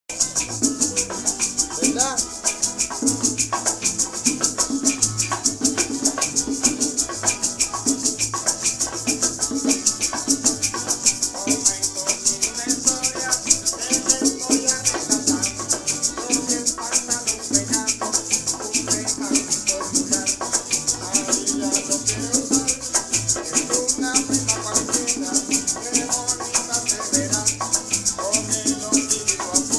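Cuban dance music: a steady maraca shake over plucked strings and a repeating bass line.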